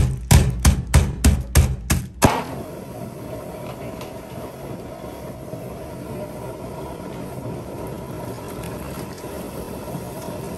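Background music with a pounding beat that cuts off abruptly about two seconds in, followed by a steady mechanical rumble with a faint steady hum, like a running motor.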